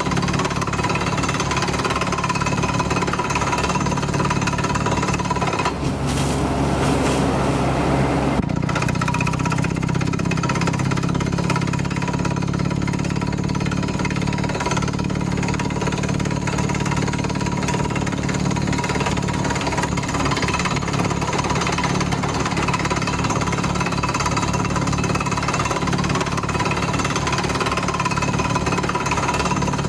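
Beretta T44 drilling rig running while boring a water borehole, its engine going steadily under a fast, even pounding from the drill. About six seconds in, the pounding breaks off for a couple of seconds under a rush of hiss, then picks up again.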